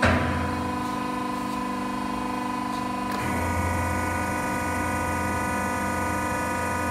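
Bendmak PRO80 three-roll section bender running with a steady hum while rolling a 50x50x5 stainless steel angle. A sharp metallic clank rings out at the start, and the hum changes pitch about three seconds in.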